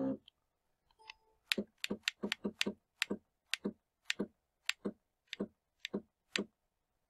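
CNC mini mill's X-axis stepper motor making about sixteen short, sharp clicks at irregular intervals, each one a single small incremental jog of the table as the edge finder is inched toward the edge of the part.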